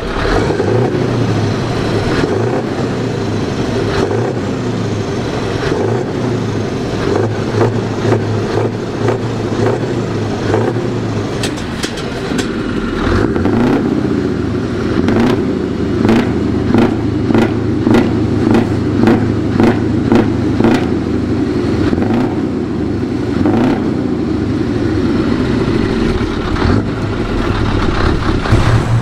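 Scania 164 580 open-piped V8 diesel truck engine running, revved in a quick run of short blips about halfway through, then settling back.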